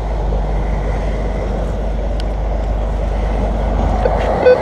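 Steady low rumbling noise, with a metal detector giving a short beep near the end as the coil passes over a target.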